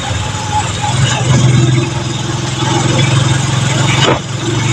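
Small vehicle's engine running with a steady low hum and road noise, heard from inside the cabin while driving.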